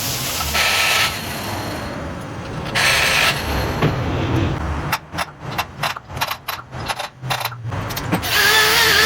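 Machine-shop work noise: short bursts of hiss, then a quick run of clicks and knocks from about five to eight seconds in, and a wavering machine whine starting near the end.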